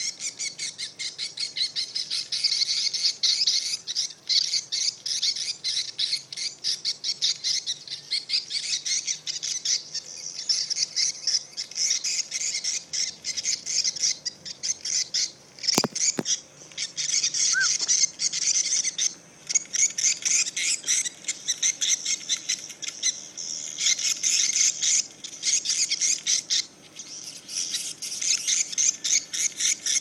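Swiftlet calls: a dense, continuous stream of rapid high-pitched chirps, from a swiftlet duress-call test that draws a large flock. A single sharp click a little past halfway.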